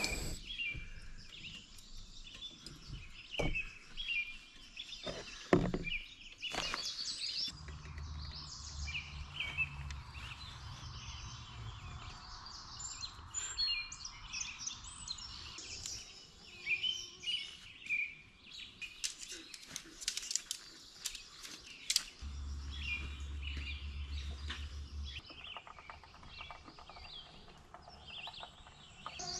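Dawn chorus: many birds chirping and calling at once. A few sharp knocks sound in the first several seconds, and a low hum comes and goes twice.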